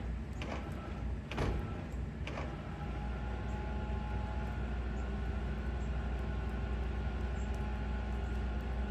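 Steady low vehicle rumble of road traffic, with a few sharp clicks about a second apart in the first couple of seconds.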